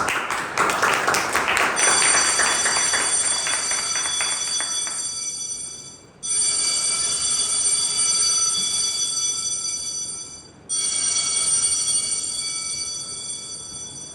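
Audience applauding, fading over the first few seconds. Over it an electric bell rings in three long rings of about four seconds each, the theatre's signal that the play is starting.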